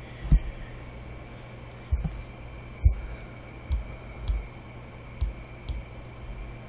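Computer mouse clicking about eight times at irregular intervals, over a steady low hum.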